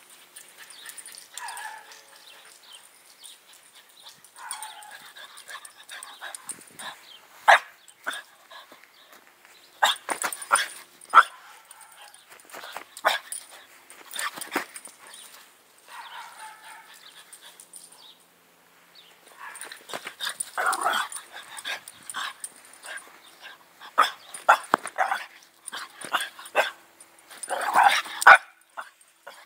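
French bulldog barking in short, scattered bursts during excited play, louder and closer near the end.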